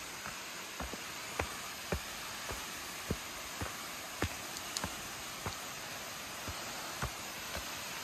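Footsteps on a leaf-strewn dirt path, short knocks about twice a second, over the steady rush of Saruo Falls, a waterfall.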